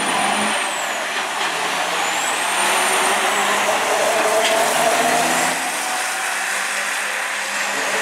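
Diesel dump trucks accelerating hard down a drag strip, engines running at full throttle. A high whistle rises and falls three times over the hard engine noise.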